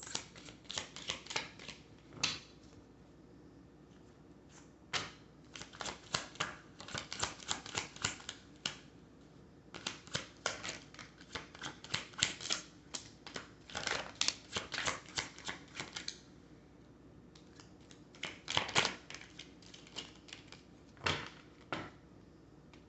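A deck of oracle cards being shuffled by hand: bursts of rapid card-on-card clicking and flicking, broken by short pauses and ending in a few single snaps.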